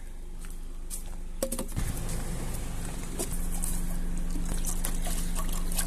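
Water poured from a plastic bottle into a stainless steel bowl: a steady splashing pour that starts about two seconds in, with a few light clicks.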